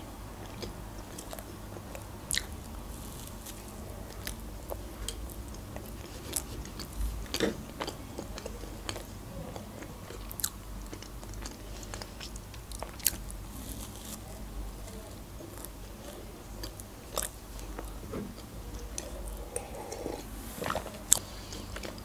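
Close-up chewing of a soft eclair filled with whipped cream, with sharp mouth smacks and clicks now and then.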